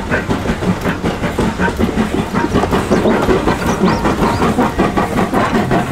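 Steam locomotive running slowly with a coach, with a steady rapid clatter of wheels and rods and steam hissing.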